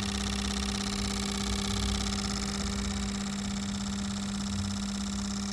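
Autool CT400 fuel injector tester running a spray test, its fuel pump and pulsing injectors making a steady hum with a fine buzzing over it.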